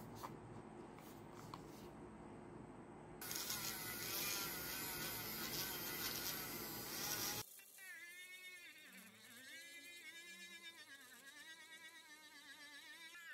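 Small handheld rotary tool running. From about 3 s to 7 s it hisses loudly as its polishing bit is pressed against a block. After an abrupt cut, its high motor whine dips and rises over and over as the bit polishes a headlight lens and the load changes.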